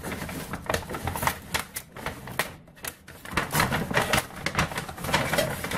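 Stiff brown paper shopping bag being handled and pulled at, the paper crinkling and rustling in quick irregular crackles, briefly quieter about halfway through.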